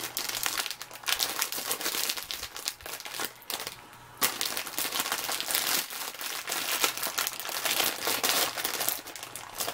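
Crinkling clear plastic packaging of a multi-pack of makeup sponges being handled and opened by hand, with a brief lull about four seconds in.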